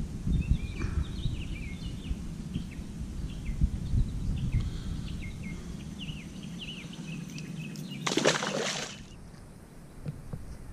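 Songbirds chirping, short repeated falling notes, over a low rumble on the microphone. About eight seconds in, a loud one-second burst of rushing noise, after which the rumble drops away.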